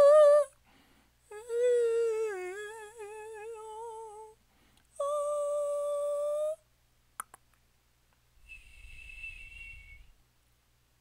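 Solo voice performing contemporary extended vocal technique. First comes a wavering hummed note that slides and trembles in pitch, then a steadier held note, two faint clicks, and near the end a thin, high, whistle-like tone over a low breathy noise.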